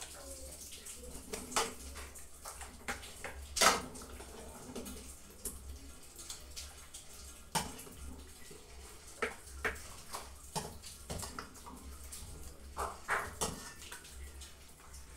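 A metal spoon stirring and scooping soup in a stainless steel pot: liquid slopping, with scattered clinks and knocks of the spoon against the pot, the sharpest about three and a half seconds in. A faint steady low hum runs underneath.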